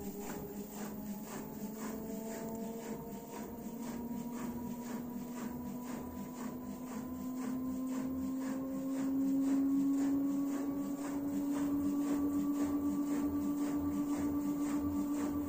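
LG F4DV509S0E washer-dryer running an empty spin cycle with its top panel off, the drum speeding up: a motor whine that rises slowly in pitch, over a soft, regular pulsing. It gets a little louder about two-thirds of the way through.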